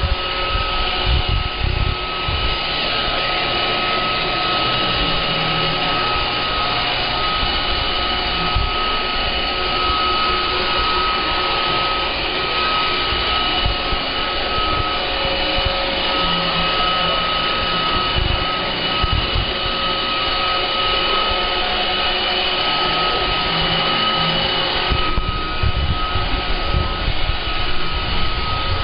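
Roomba robot vacuum running, a steady whir with a high whine over it and occasional low knocks.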